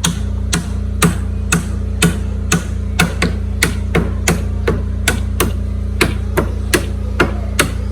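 Hammer blows struck in a steady rhythm, about two to three a second, stopping near the end, over a steady low hum.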